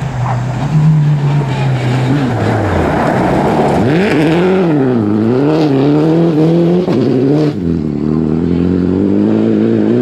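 Rally car engine running hard, then dropping in pitch as the car slows for the junction. Its revs swoop up and down several times while the car slides through the turn, drop sharply near the end, then climb steadily as it accelerates away.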